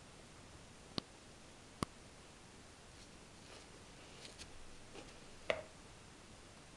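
A golden retriever gnawing on a chew toy held between its paws: scattered sharp clicks of teeth on the toy, two about a second apart early on, a cluster of fainter ones around four seconds in, and the loudest one a little after five seconds.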